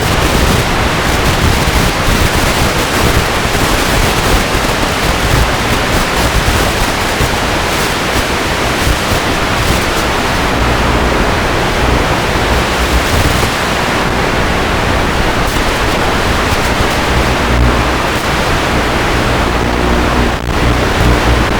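Loud, steady rushing noise of wind and spinning propellers picked up by an FPV drone's onboard camera in flight. A low motor hum shows through near the end.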